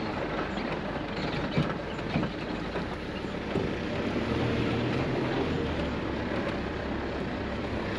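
Steady rushing outdoor noise with a few faint clicks.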